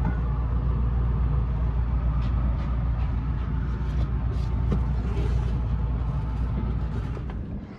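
A steady, deep mechanical rumble with a low hum, fading away near the end.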